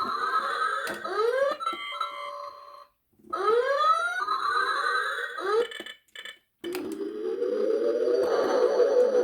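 Electronic sci-fi sound effects from a Playmates Star Trek: The Next Generation Enterprise-D bridge playset: repeated rising sweeps and beeping tones. They stop twice briefly and start again, ending in fast repeated pulses.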